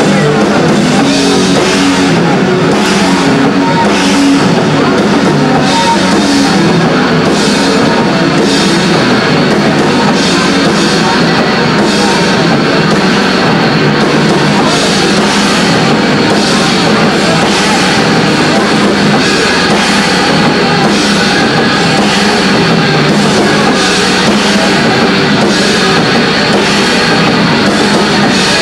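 Rock band playing live and loud: electric guitars over a drum kit, with cymbals hit in a steady beat.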